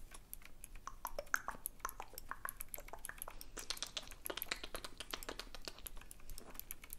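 Typing on a retro typewriter-style keyboard with round keycaps: a fast, uneven run of light key clicks.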